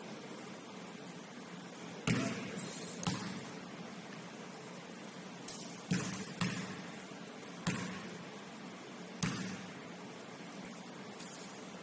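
A basketball bouncing on a gym floor: about seven separate thuds at uneven gaps, the loudest about two seconds in, over a steady low hall hum.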